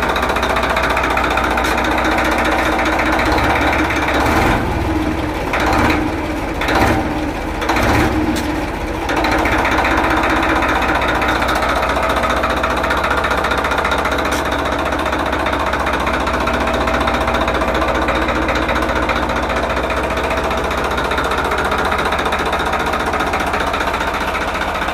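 Tractor diesel engine running with a steady clatter, newly swapped in and being tested. Its note dips and picks up again a few times between about four and nine seconds in.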